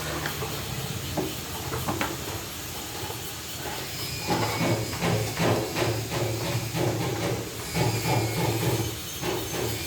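Screwdriver and hand work on a scooter's plastic air filter housing: a few separate clicks, then from about four seconds in a quick run of knocks and clicks, several a second, over a steady hiss.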